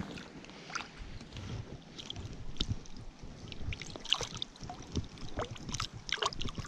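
Small irregular splashes and drips of water as hands work a wild brown trout in a landing net held in shallow stream water, a little louder about four and six seconds in.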